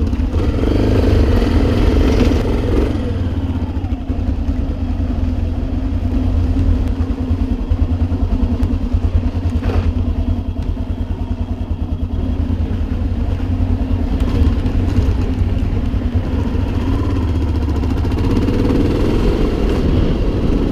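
Trail motorcycle engine running while ridden, heard from the rider's seat, a steady rapid low pulsing with some rise and fall in level.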